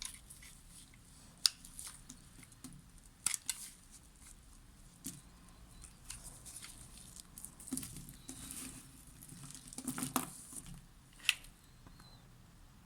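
A knife cutting through a bar of soap: irregular crisp, scraping cuts and sharp clicks, with a longer scraping cluster a little before the end.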